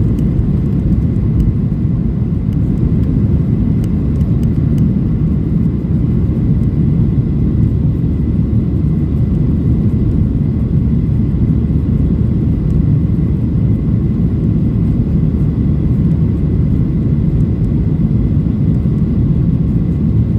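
Jet engine noise of a Boeing 737-800's CFM56 turbofans during takeoff: a loud, steady low rumble with a faint thin whine over it, unchanging throughout.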